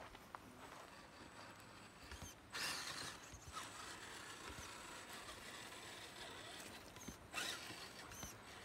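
Radio-controlled Redcat Gen8 rock crawler's small electric motor and gears whirring faintly as it crawls over dirt and rock, with two short spells of tyres crunching and scrabbling, about two and a half seconds in and near the end.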